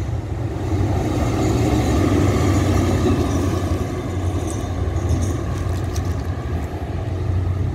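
A diesel locomotive running light, with no train behind it, passing along the track. Its engine gives a steady low drone and rumble, loudest about two to three seconds in as it goes by, then easing a little as it draws away.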